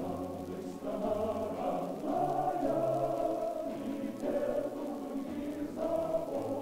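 A choir singing slow, held chords as background music, the notes changing every second or two.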